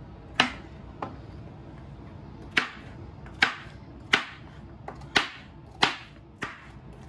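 Kitchen knife chopping a carrot into chunks on a cutting board: about nine sharp knocks of the blade hitting the board, unevenly spaced, with a short pause after the first two.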